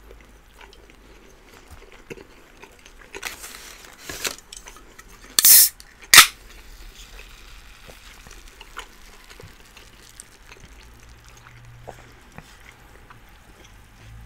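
Close-up eating sounds: scattered fork and cutlery clicks and plastic sauce-cup handling. About five and a half seconds in comes a short loud hiss, then a sharp click, the loudest sounds.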